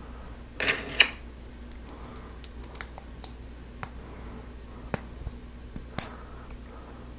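Hard plastic Lego Technic parts clicking as pins and an axle are pushed into beams by hand: a quick cluster of sharp clicks about a second in, then scattered single clicks, with another loud one near the end.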